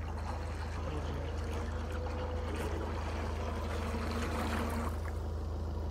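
Remote-controlled carp bait boat running over the water with its propellers churning. The churning swells about three seconds in and eases near the end, over a steady low hum.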